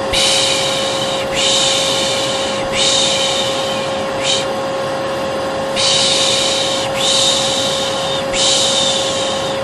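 A vacuum cleaner runs steadily with a constant whine. Over it, a 'shh' shushing sound for soothing a baby repeats in hissy strokes of about a second each, back to back, with a short one and a pause of over a second around the middle.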